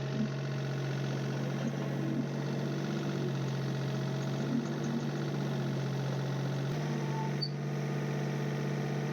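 Mini excavator engine running steadily at idle, with a small shift in its pitch about seven seconds in.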